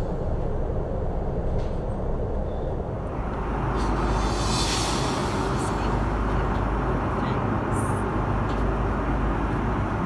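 Airliner cabin noise in flight: a steady low roar of engines and rushing air, a little louder and brighter from about three seconds in.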